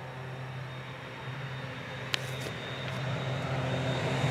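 Air Tractor 402B crop duster's Pratt & Whitney PT6A turboprop engine and propeller approaching low, a steady drone with a high whine growing steadily louder. A single sharp click comes about two seconds in.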